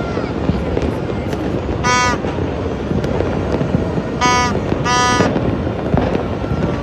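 Dense, continuous crackling and popping of many New Year fireworks and firecrackers going off at once, broken by three short, buzzy toots.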